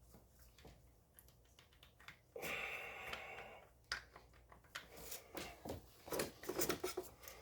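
Light metallic clicks and rattles of a semi-auto shotgun's parts being worked by hand as the charging handle and bolt are wrestled free of the receiver, growing busier in the second half. A breathy rasp lasting about a second and a half comes a little over two seconds in.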